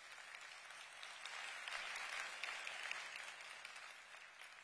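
Audience applause in a large hall, swelling to its fullest about two seconds in and then tapering off.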